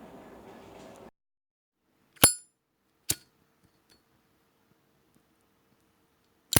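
Metal lighter clicks, the sounds of a Zippo lighter's lid: a sharp metallic clink with a brief ringing ping, a softer click under a second later, and another sharp click near the end.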